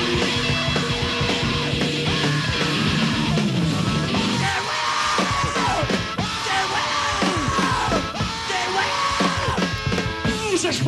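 A live garage-blues rock band plays at full volume: two distorted electric guitars and drums, with no bass. From about halfway through, yelled vocals with swooping falling pitches ride over the band.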